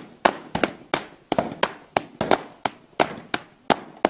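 Rattan carpet beaters slapping down on wet, soapy wool laid over a sheepskin, about three sharp slaps a second: the wool is being beaten to felt it onto the hide.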